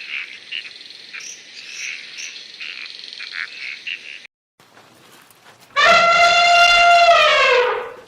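Birds chirping busily, then after a cut a different animal gives one long, loud call, steady at first and falling in pitch at the end.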